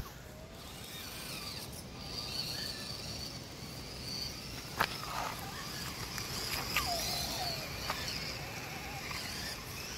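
Axial SCX24 RC crawler creeping through a mud pit: the faint whir of its small electric motor and drivetrain with tyres working through wet mud, a sharp click about five seconds in, over outdoor background noise.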